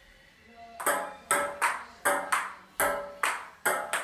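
A table tennis rally on a glass-topped table: a quick run of sharp ball strikes, starting about a second in. Paddle hits alternate with bounces on the glass top, about three a second, each with a short ring.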